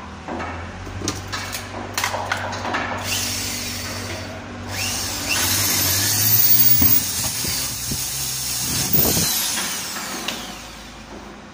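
Electric drill spinning up and boring a hole through a laminated wood cabinet door for a handle, its whine rising at the start and falling as it stops about four seconds later. A few knocks and clicks of handling come before it.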